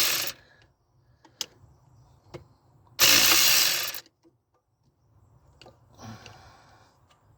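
Hand tool working at a seized fitting: a few single clicks, then a loud, harsh rasping burst about a second long about three seconds in, and a fainter one near the end.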